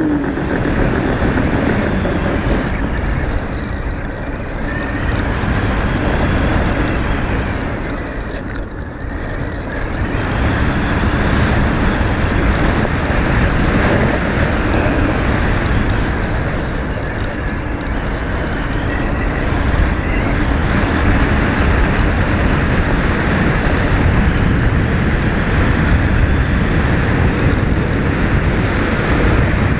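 Loud, steady rush of wind buffeting the microphone of a camera carried aloft at about 1200 feet, dipping briefly about a third of the way in.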